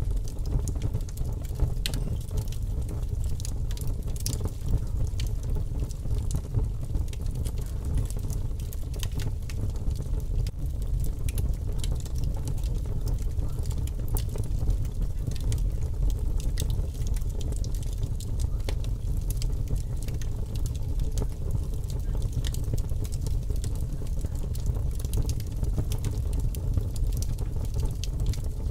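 A fire crackling: many small, irregular pops and snaps over a steady low rumble.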